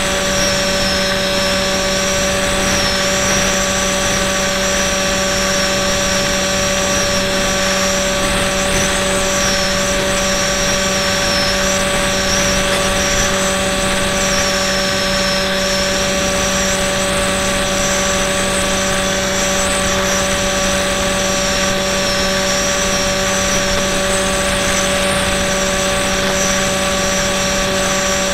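FPV model airplane's motor and propeller running steadily, heard close up from the camera on board, over a rush of wind. A high whine above it wavers up and down in pitch.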